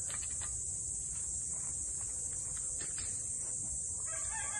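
Steady high-pitched insect chorus, with a few faint taps.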